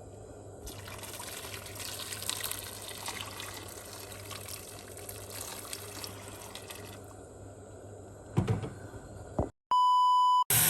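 Water running from a tap for several seconds, then stopping. Near the end, a loud, steady beep about a second long.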